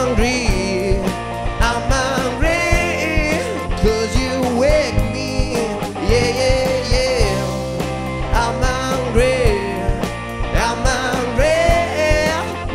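Live blues-rock band playing: a man singing long, bending lines over electric guitar and a drum kit.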